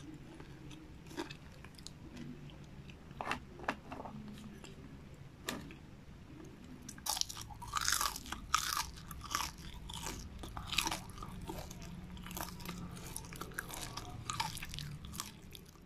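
Crisp crackling crunches of fried seaweed snack, scattered at first, then dense and quick from about halfway through, over a low steady hum.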